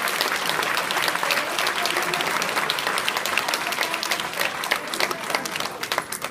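Audience applauding: many hands clapping, dense at first and thinning out and fading near the end.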